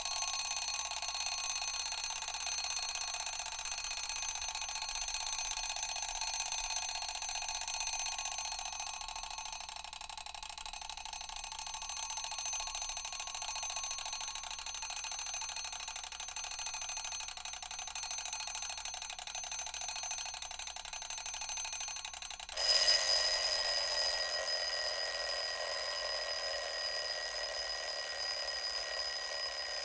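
Mechanical alarm clock bell ringing continuously. About three-quarters of the way through it cuts abruptly to a louder ringing with a different, higher set of tones.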